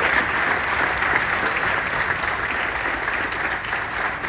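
Audience applauding: many hands clapping in a steady patter that eases off slightly toward the end.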